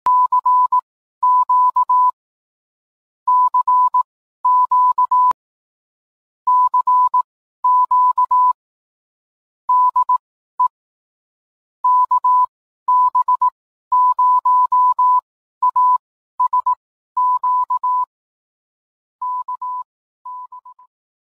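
Morse code in a single steady beeping tone, keyed on and off in quick groups of short and long beeps, with the last two groups fading away near the end.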